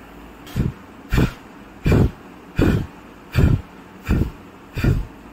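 A person breathing out hard through the mouth in quick, evenly spaced puffs, about eight of them, one every 0.7 seconds or so, as a breathing exercise repeated in a set.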